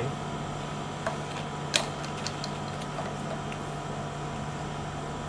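A few light clicks from a key being worked in the mechanical cylinder of a smart door lock, the sharpest about two seconds in, over a steady low hum.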